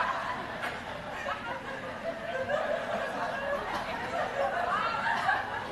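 Audience laughing and chuckling, a steady spread of scattered laughter.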